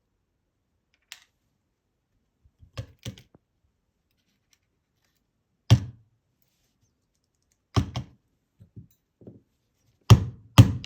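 Sharp clicks and knocks of small metal parts being handled while an ASSA 700 lock cylinder is disassembled pin by pin: tweezers, pins and the lock knocking against hard surfaces. The clicks come at irregular intervals, with a few louder knocks near the middle and two near the end.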